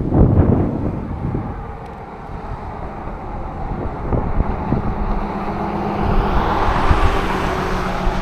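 Wind buffeting the microphone. Over the second half a passing motor vehicle's tyre and engine noise builds up, with a steady low hum under it.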